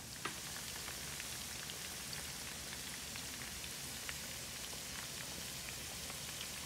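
Pork ribs frying in a pan of hot oil: a steady sizzle with scattered small crackles and pops, one sharper pop just after the start.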